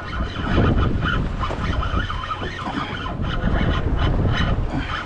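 Wind blowing across the microphone on a boat deck: a steady low rumble, with a few short knocks and clatters.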